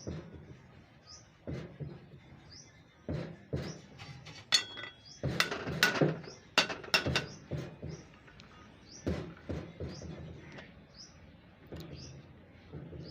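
Metal clinks and knocks from tools and parts being handled, busiest in the middle, with one brief ringing clink about four and a half seconds in. Small birds chirp repeatedly throughout.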